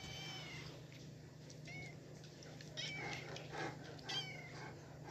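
Young kitten meowing, a string of short, high-pitched mews that fall in pitch, about five in all.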